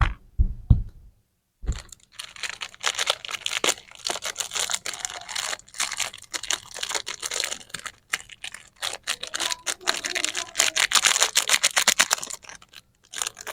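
A few soft knocks, then from about two seconds in, dense crackling and crinkling of lollipop and candy wrappers being handled and torn open, breaking off briefly near the end.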